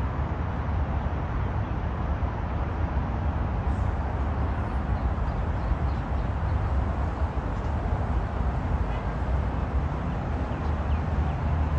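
A steady low outdoor rumble with no breaks, with a few faint bird chirps near the end.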